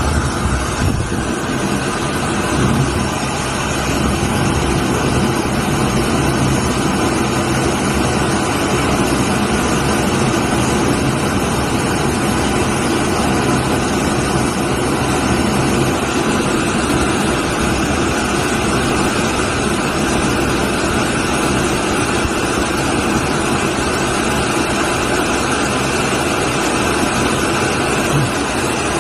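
Washing machine running: a loud, steady mechanical whir with a low hum underneath, unbroken throughout.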